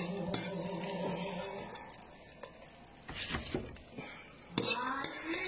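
A metal slotted skimmer knocks and clinks against a frying pan in several separate taps while fried aubergine cubes are lifted out of the oil. A low steady hum runs under the first second or so and then fades.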